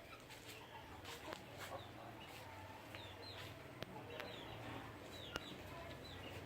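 Chickens calling: short, high peeps that fall in pitch, repeated several times, over a steady low hum, with a few sharp clicks.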